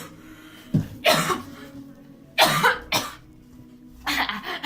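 A person coughing, three or four harsh coughs about a second apart.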